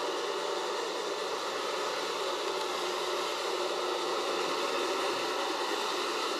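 Robot vacuum cleaner (model 681) running, a steady whirring of its suction fan and brushes with a few faint steady tones in it.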